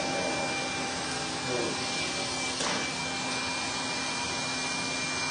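Electric hair clippers running with a steady motor buzz while cutting short hair on the side of a head.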